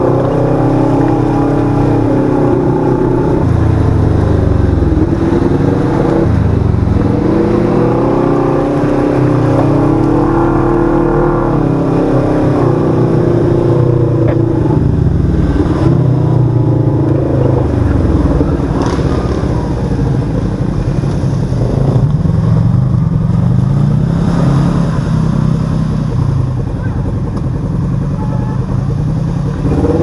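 Side-by-side UTV's 1000 cc parallel-twin engine running hard on a dirt trail, its revs rising and falling again and again with the throttle, heard from on board.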